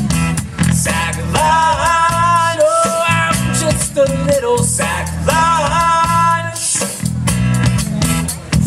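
Live band playing an upbeat rock song on a drum kit and guitars, with a melody line that bends in pitch over a steady beat.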